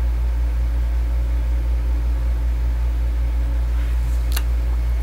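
Steady low hum with a faint hiss behind it, and a brief click about four seconds in.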